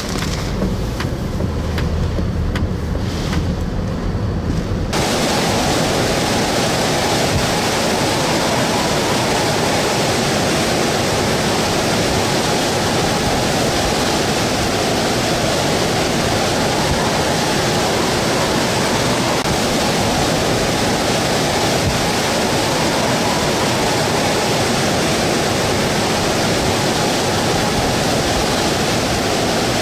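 Hurricane wind and rain heard from inside a vehicle, with a low steady hum beneath. About five seconds in, the sound cuts abruptly to a loud, steady roar of hurricane wind and storm-surge floodwater rushing across a road.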